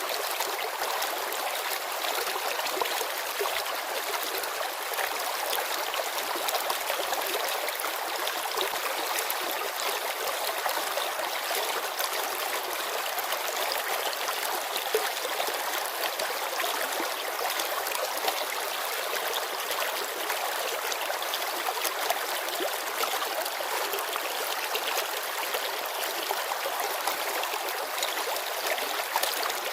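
Shallow mountain river babbling steadily over stones, a constant hiss of running water with small splashes and gurgles.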